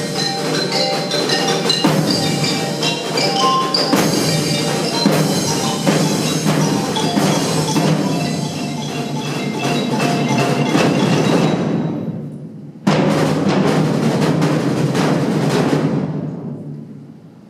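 Percussion ensemble with mallet instruments playing. The music thins out around twelve seconds in, then a sudden loud struck chord rings out and dies away near the end.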